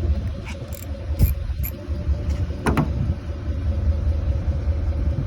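A steady low rumble with a few light clicks and knocks about half a second, a second and a quarter, and near three seconds in.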